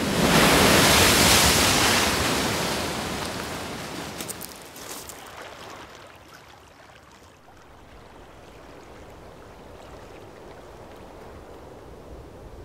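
A loud rushing sound that peaks in the first two seconds and fades over several seconds into a steady low hiss, with a few brief crackles about four to five seconds in.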